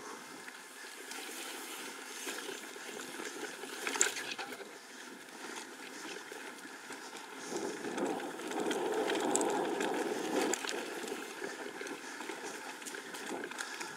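Mountain bike rolling fast down a dry dirt singletrack: tyre noise on the dirt mixed with wind rushing past the camera. There is a sharp knock about four seconds in, and the rumble grows louder a little past halfway before easing off.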